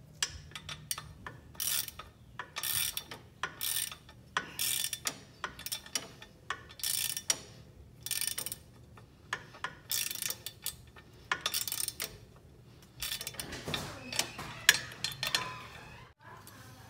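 A 3/8-inch hand ratchet clicking in short rasping runs about once a second as it turns a nut on a tractor's pedal linkage. Near the end comes a longer stretch of metal scraping with one sharp clink, the loudest sound here.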